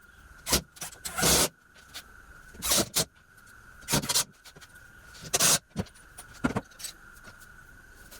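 Short, irregular scraping or rubbing sounds, about six of them, each lasting a fraction of a second, over a faint steady high tone.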